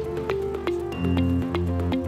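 Upbeat electronic background music: pitched plucked notes over a quick, steady ticking beat, with a heavy bass line coming in about halfway through.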